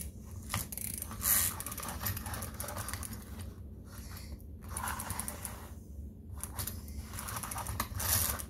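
Small plastic toy fishing game being twisted by hand to wind it: scratchy plastic clicking and scraping in irregular spells, with a couple of short pauses.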